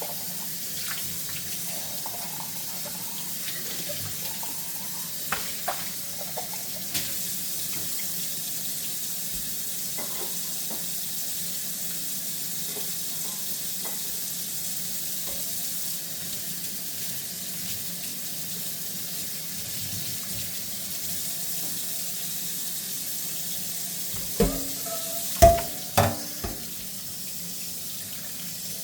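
Kitchen tap running steadily into a sink while dishes are washed by hand, with a few light clinks. Near the end comes a quick run of four or five louder knocks and clatters of dishes against each other or the sink.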